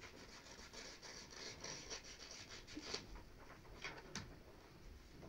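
Faint rubbing and rustling of paper being handled, with a couple of light clicks about three and four seconds in.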